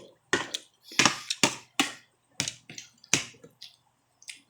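Eating close to the microphone: a quick, irregular series of sharp clicks and crunches, about a dozen in four seconds, with brief gaps between them.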